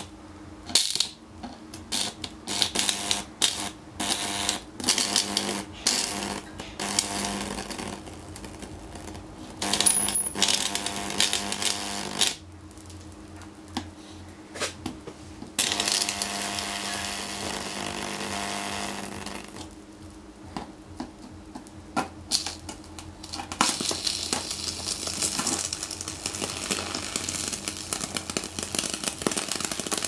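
High-voltage arc from a microwave oven transformer crackling and snapping in irregular bursts as it burns into a broken LCD panel, turning in stretches into a steady buzzing hiss. A low, steady transformer hum sits under it throughout.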